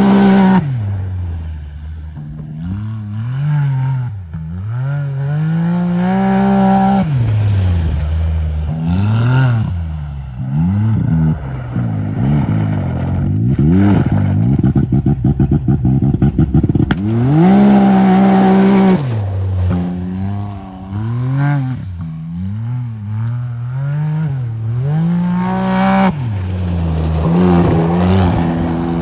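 Side-by-side UTV engine revving hard and falling back again and again as the machine slides and spins its studded tires on ice. A little past the middle the engine note stutters rapidly for a few seconds, then holds at its highest revs before dropping.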